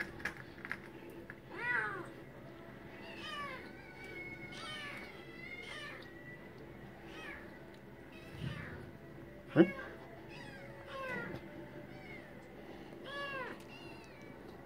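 Domestic cat meowing over and over, about a dozen short rising-and-falling meows, typical of a cat wanting attention. About two-thirds of the way in there is one sharp, loud sound.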